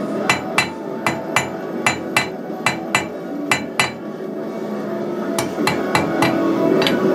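Hammer blows on hot steel flat stock on an anvil, ringing strikes mostly in pairs about half a second apart, then a short pause and a quicker run of four blows and one more near the end. This is the forging of the split end into spirals. A steady hum runs underneath.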